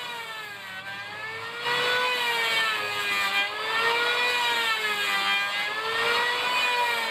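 A steady, high, motor-like whine that wavers slowly up and down in pitch, getting louder about a second and a half in.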